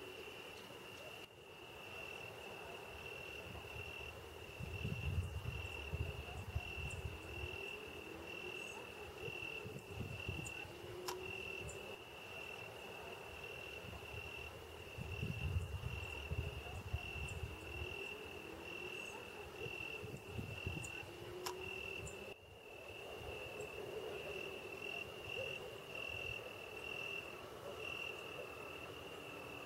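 A cricket chirping in a fast, even, high pulsing trill that does not let up. Twice, low rumbling noises rise under it.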